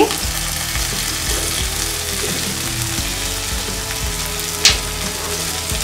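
Hot oil sizzling steadily in an iron kadhai with green peas frying in it, as boiled potato is broken into the pan. A brief louder hiss comes near the end.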